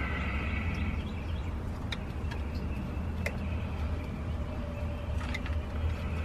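Pliers working a hose clamp on a transmission cooler line: a brief metal scrape at the start, then a few sharp clicks of the jaws on the clamp, over a steady low rumble.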